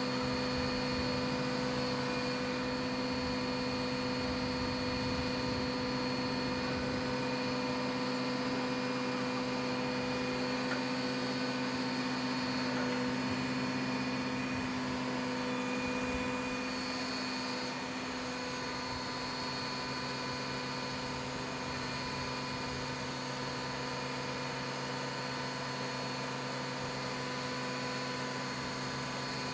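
Quint fire truck's engine and aerial ladder hydraulics running as the aerial is raised and extended: a steady drone with held whining tones. It drops a little in level about halfway through.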